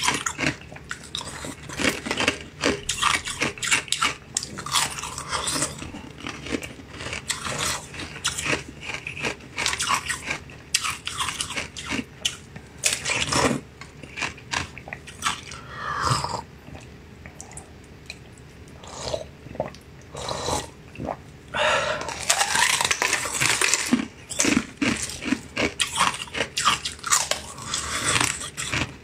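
Close-miked mouth sounds of a person biting and chewing pieces of a green translucent jelly sweet: a dense run of quick clicks, with a short lull past the middle.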